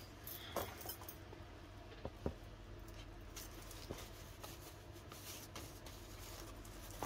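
Faint scattered taps and rustles of paper and cardboard being handled, over a low steady hum.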